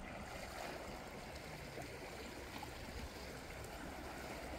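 Faint, steady wash of calm seawater lapping against the shore rocks, with a low rumble underneath.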